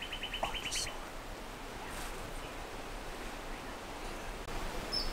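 Steady wind noise through bush, with a rapid trill of clicking bird notes in the first second and a couple of short, faint bird chirps later.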